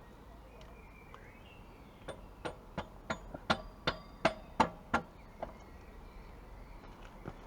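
A mallet tapping a greased swing-arm pivot bolt through a motorcycle's swing-arm pivot. About ten sharp taps come over roughly three seconds, a few of them with a brief metallic ring.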